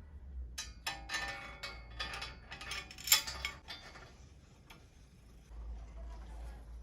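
Small metal bicycle headset parts clinking and ringing against each other as the headset is fitted back together, with a sharper clink about three seconds in.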